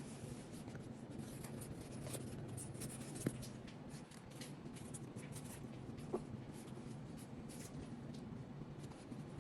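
Faint scratchy rubbing with many light ticks and a few small knocks, over a low steady hum.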